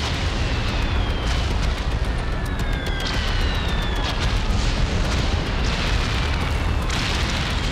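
Explosions and rocket fire: a constant heavy rumble of blasts with sharp crackling pops, and several whistles falling in pitch, like incoming rockets or shells.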